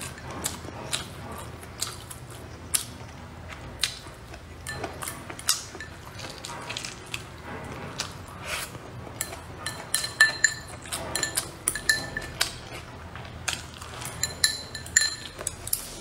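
Eating utensils clicking and clinking against dishware, with many short crisp clicks, as food is picked up and eaten close to the microphone. Small ringing clinks come thickest in the second half.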